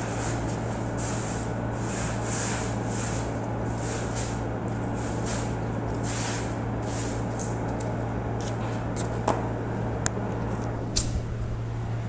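A long-handled mop swishes across the floor in repeated strokes, about one a second, over the steady hum of a window air conditioner. Three sharp clicks or knocks come in the last few seconds.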